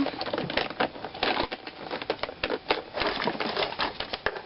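Close handling noise: a dense, irregular run of clicks, taps and crackling as small objects are handled.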